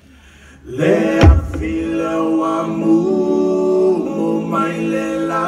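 Live Samoan song by a small acoustic group. After a short lull, a sharp low knock comes about a second in. Then several men's voices enter together on long held notes in harmony.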